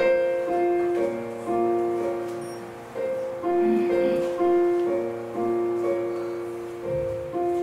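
Casio digital piano playing a slow, gentle introduction: sustained chords and single notes struck about every half second, each fading away.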